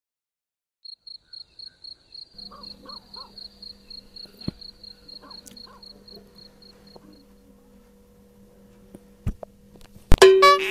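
Cricket chirping: a high, evenly pulsed trill of about four to five pulses a second that stops about seven seconds in, over a faint low steady hum with a couple of light clicks. A short loud burst of sound comes near the end.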